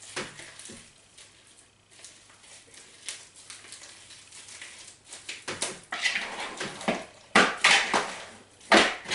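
Homemade glue slime being stretched and kneaded by hand, making sticky squelches and crackles. They get thicker and louder in the second half, with a few sharper smacks near the end as it is worked down into a plastic bowl.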